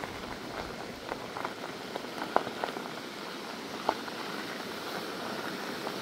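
Fat knobbly tyres of an electric mountain bike rolling slowly over a dirt and gravel path: a steady crunching hiss with a few sharp clicks of stones scattered through it.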